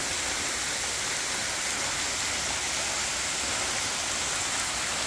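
Waterfall pouring off a rock bluff and splashing onto the rocks below: a steady rushing of water.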